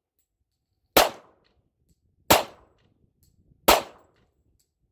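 Semi-automatic pistol firing three single shots, evenly spaced about a second and a half apart, each a sharp crack with a short echo trailing off.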